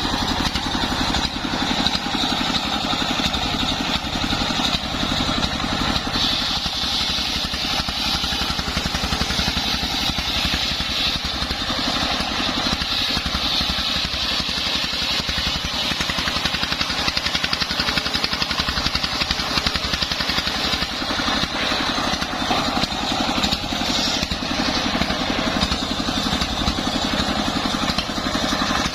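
Engine-driven homemade circular sawmill running while sawing sengon wood into beams: a steady, fast engine beat underneath and a high, continuous whine from the blade, somewhat stronger through the middle.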